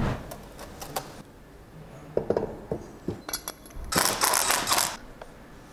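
Light metallic clicks and knocks of a socket and tools on an engine, then about four seconds in roughly a second of a cordless impact wrench hammering as it runs down a cylinder head bolt.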